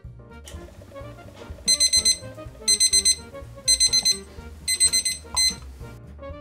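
Digital kitchen timer alarm beeping in short bursts of rapid high-pitched beeps, about one burst a second, four or five times from a little under two seconds in: its countdown has run out at zero.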